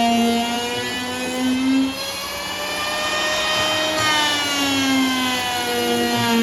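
Power tool motor running at high speed, its pitch sagging and rising again as the load changes, with a rush of cutting noise around the middle.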